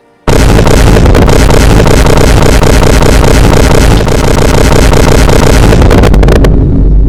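Blaring, heavily distorted sound effect at near full volume: a dense wall of noise with a heavy low rumble that starts abruptly a moment in. Near the end the upper part cuts out and only the low rumble carries on.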